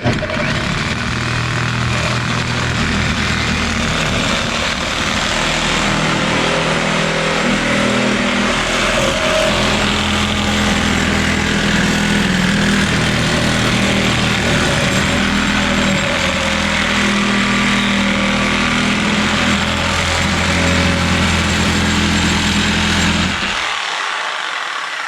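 Reciprocating saw with a short metal-cutting blade running steadily as it cuts through a galvanized steel pipe, then stopping near the end once the piece is cut off.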